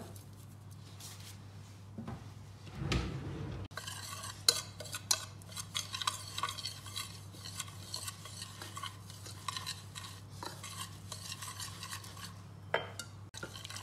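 Metal wire whisk scraping and clicking rapidly against a ceramic bowl as it mixes spice powders, yogurt and lemon juice into a thick marinade paste. The whisking starts nearly four seconds in, after a short low rumble.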